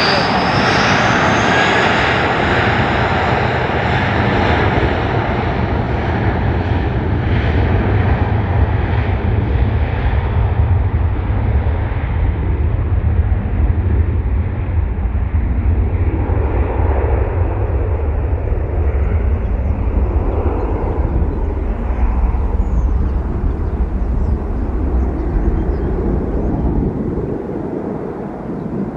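Airbus A320-family jet airliner taking off: a loud jet engine noise with a high whine at first, the high end fading as the aircraft moves away while a deep rumble carries on and eases near the end.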